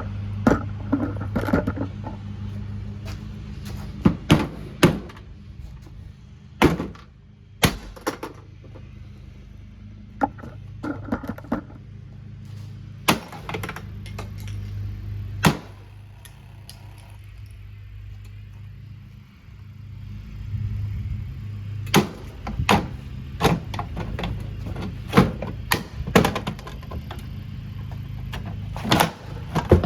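Irregular hard knocks and thuds of a Kuppet portable washing machine's housing being struck in an effort to smash it, in scattered groups with a pause midway, over a steady low hum.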